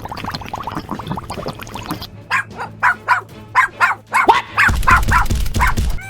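A dog barking: a quick run of short, sharp barks, about two a second, starting about two seconds in.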